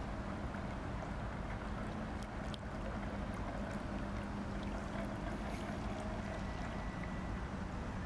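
Radio-controlled scale model boat's motor humming low and steady as it cruises on the water, under a steady rumble of wind on the microphone.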